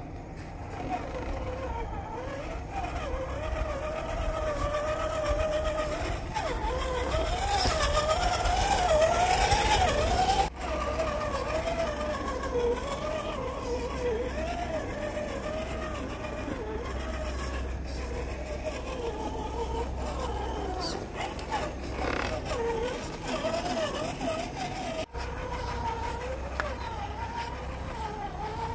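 Electric drive motor and gearbox of a 1/10 scale RC rock crawler (RGT EX86110 chassis) whining as it crawls over rock. Its pitch rises and falls constantly with the throttle, loudest about eight to ten seconds in, with two brief dropouts.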